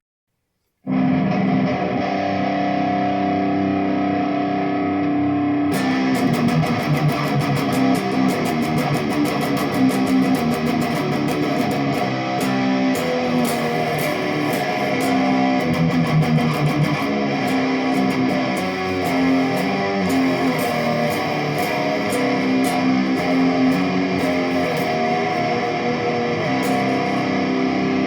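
Jackson Dinky electric guitar, its tone control fitted with a 103J (0.01 µF) capacitor, played as a riff that starts about a second in. It turns suddenly brighter about six seconds in and stays bright from there on.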